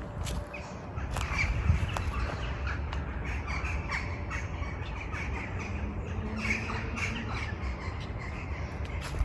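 Birds giving many short, repeated calls over a steady low rumble.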